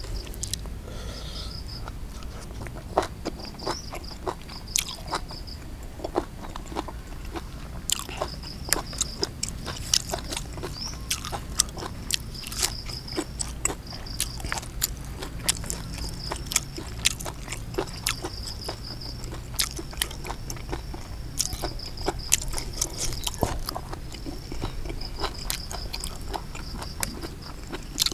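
A person chewing and biting raw beef tripe with sticky rice close to the microphone, with frequent sharp crunches and wet smacks.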